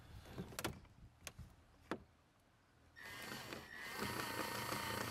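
A few light clicks, then the Impala's electric power window motor whining steadily for about three seconds as the door glass moves.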